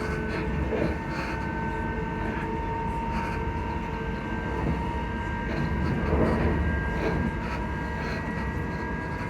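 Class 334 electric multiple unit's traction motors humming: a steady whine that rises slightly in pitch, over the low rumble of the train running.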